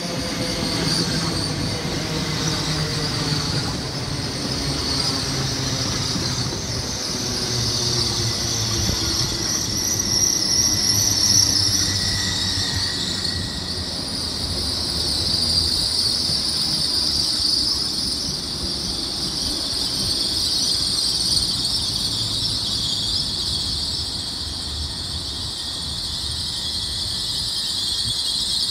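LNER Azuma high-speed train running slowly into a station platform. A whine falls in pitch over the first ten seconds or so as the train slows, under a steady high-pitched squeal from the wheels and brakes.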